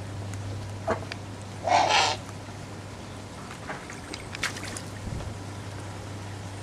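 Turkmenian eagle-owl bathing in a shallow water tray: a loud splash about two seconds in as it shakes itself in the water, then smaller splashes and flaps a couple of seconds later.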